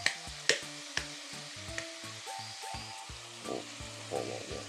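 Sea cucumber and vegetables sizzling as they stir-fry in oil and sauce in a pan, with a few sharp knocks of the spatula against the pan in the first two seconds.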